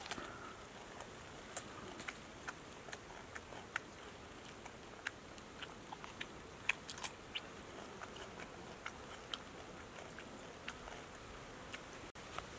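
A person biting and chewing food: irregular crisp clicks and crunches, about two or three a second.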